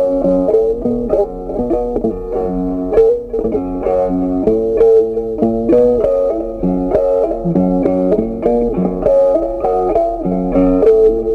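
Instrumental background music: a melody of quick changing notes over lower notes, continuing without a break.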